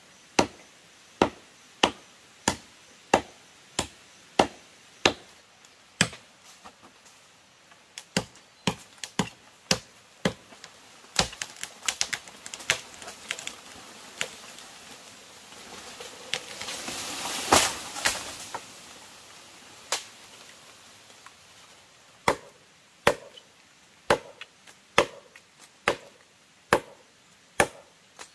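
A blade chopping into wood in steady strokes, about one and a half a second, breaking into quicker, uneven strikes and then settling back into the steady rhythm. About halfway through, a rising rush of noise swells and peaks in a sharp crack before the chopping resumes.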